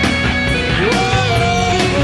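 Live rock band playing, a distorted electric lead guitar holding and bending notes over drums and bass, with a note sliding up about a second in.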